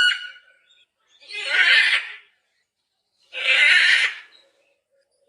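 Macaw calling: a short pitched call at the start, then two loud, harsh squawks about a second long each, roughly two seconds apart.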